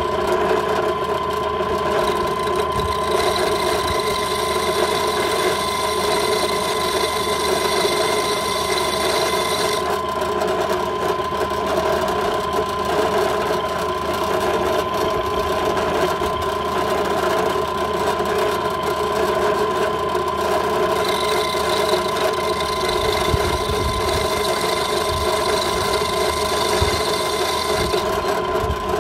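Bench drill press motor running steadily as its bit drills into a glass bottle under water. A higher-pitched whine joins twice, for several seconds each time.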